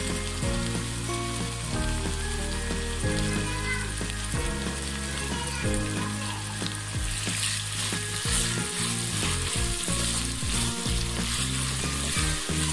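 Chicken, onion, green chillies and carrot sticks sizzling in hot oil in a wok. From about halfway through, the food is stirred, adding a run of scraping strokes over the sizzle.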